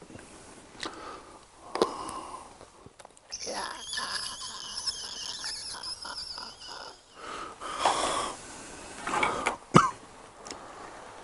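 Ketchup squeezed out of a small sauce packet, sputtering and hissing for about four seconds, followed by a few short squirts and a sharp click of chopsticks against the griddle near the end.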